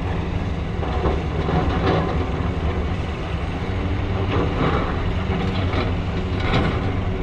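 Hitachi Zaxis 870 hydraulic excavator's diesel engine running steadily, with several short clanks and scrapes over it.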